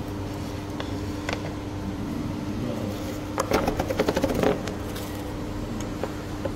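Steady hum of a room's fan or air-conditioning, with a couple of single clicks about a second in and a burst of rapid clattering clicks just past the middle.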